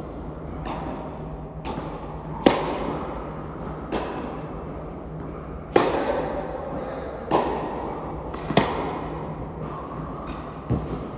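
Tennis rally: a ball struck back and forth by rackets and bouncing on the court, a sharp pop about every second and a half, each ringing on in the echo of an indoor tennis hall.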